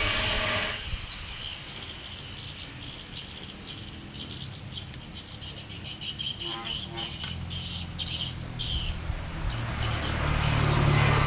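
Cranking of a Volvo six-cylinder diesel engine that will not start on only two working glow plugs: the loud cranking stops about a second in, and a low rumble builds again near the end as cranking resumes. Short bird chirps are heard in the quieter stretch between.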